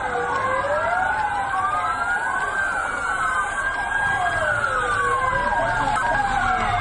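Several emergency-vehicle sirens wailing at once, their slow rising and falling sweeps overlapping one another.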